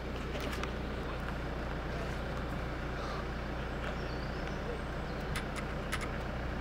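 Jeep Cherokee Trailhawk's 3.2-litre Pentastar V6 running steadily at low revs as the SUV crawls up a steep sandy off-road slope with a rear wheel in the air. A few short sharp clicks come over it.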